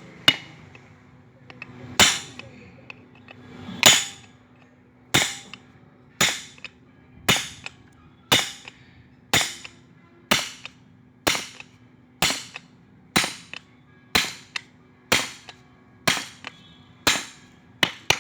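Steady hammer blows on the steel shell of an old fridge compressor, cutting it open for scrap. The sharp metallic strikes come at about one a second, each with a short ring.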